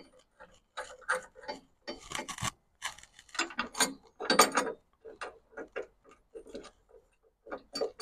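Light metal clicks, taps and scrapes, irregular throughout, as a steel bracket is fitted and bolts are worked into it by hand.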